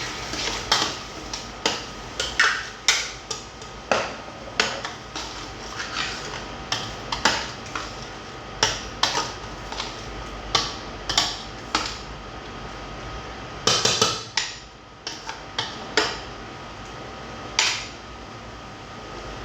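Kitchen utensils clinking and knocking against pots, pans or a board, irregular sharp strokes about one or two a second, with a brief cluster of quick strokes around the middle.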